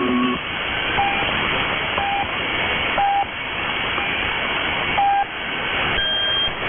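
Shortwave broadcast station's time signal pips heard through a receiver over steady static hiss: short tones about once a second, ending in a longer, higher-pitched pip that marks the top of the hour.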